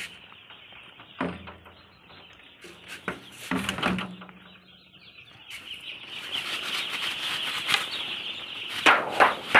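A brooder full of broiler chicks peeping continuously as a crowd, the chorus swelling about halfway through. A few knocks and handling noises break in, the sharpest near the end.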